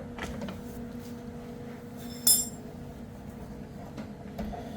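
Metal tools being handled: a few light clicks and one sharp, ringing metal clink about two seconds in, over a steady low hum.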